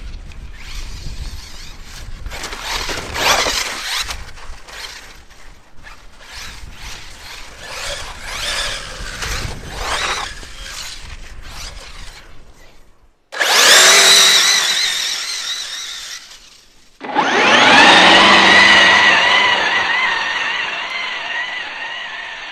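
Arrma Kraton EXB RC truck running on 6S, its electric motor and drivetrain whining in short, uneven bursts of throttle for the first dozen or so seconds. Then two loud, sustained whines start abruptly, about thirteen and seventeen seconds in, the second slowly fading.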